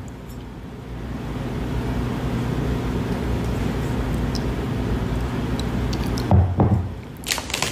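Steady low hum with an even hiss, broken by a short low vocal sound about six seconds in and a few clicks near the end.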